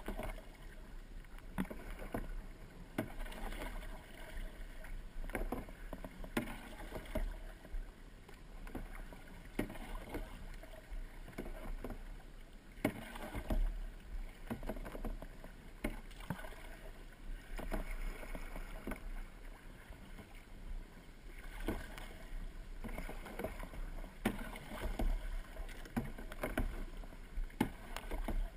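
Kayak paddle strokes, the blades dipping and splashing into the water about once a second in a steady rhythm, over a low steady rumble.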